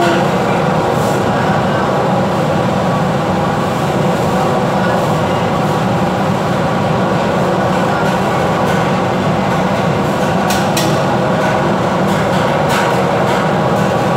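Ship's engines running with the hull vibrating, a loud, steady drone. A few short clicks or rattles come about ten and a half and twelve and a half seconds in.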